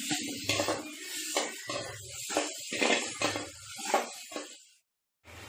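A metal spatula scrapes and clinks against a stainless steel pot in repeated strokes while shallots and spices fry in oil, with a sizzle underneath. The sound drops out for a moment near the end.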